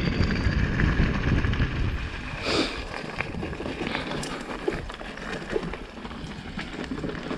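Wind buffeting the microphone over the rumble of a mountain bike riding a wet, stony trail, with a few light clicks and knocks from the bike and stones. The wind rumble is heaviest for the first two seconds, then eases.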